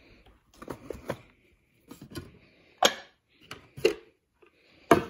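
Clacks and knocks of household items and boxes being handled and set down on a wooden table. A few light taps come in the first half, then three sharper knocks about a second apart.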